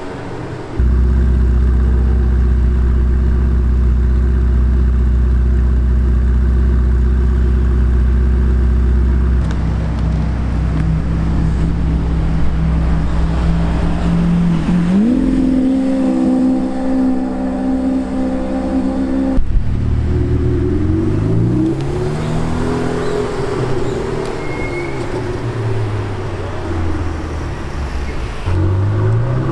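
High-performance supercar engines in a series of short clips: first a loud steady low engine note, then a rev that climbs sharply and holds. After a cut, a car accelerates hard through several gears, its pitch rising and dropping back at each upshift.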